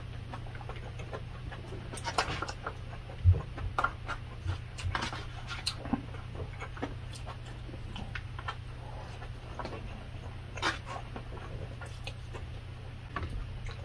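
Close-miked eating: chewing and mouth sounds from mouthfuls of rice and vegetable stew, with a spoon and fork clicking and scraping against plastic takeout trays. Short clicks and smacks come irregularly over a steady low hum.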